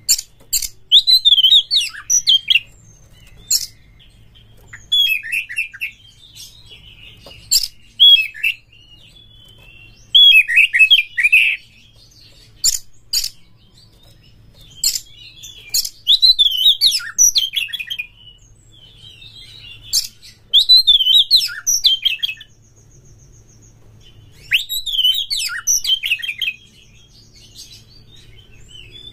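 Oriental magpie-robin singing: bursts of quick, varied whistles and warbles laced with sharp clicking notes, each burst a second or two long, separated by short pauses.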